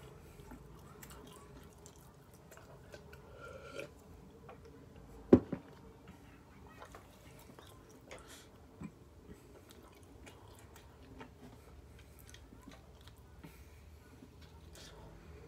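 A person quietly chewing a mouthful of burrito, with small wet mouth clicks and another bite near the end. One sharp knock about five seconds in is the loudest sound.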